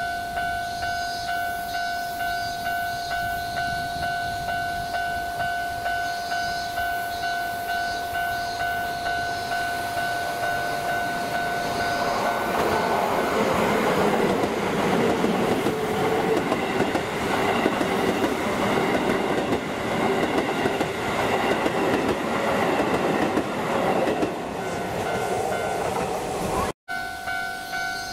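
A railway level-crossing warning bell ringing in a steady, even rhythm, then a Keisei electric commuter train passing close by, its wheels and running gear louder than the bell for about fourteen seconds, with a brief falling whine as it goes by. After a sudden break near the end, the bell ringing again.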